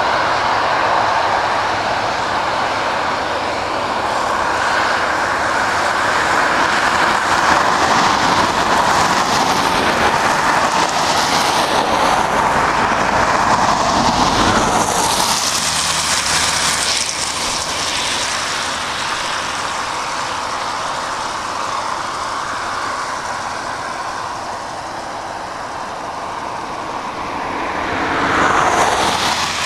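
Road traffic passing on a highway: steady tyre and engine noise from cars and a truck, swelling as vehicles go by, loudest about halfway through and again in a shorter rising swell near the end.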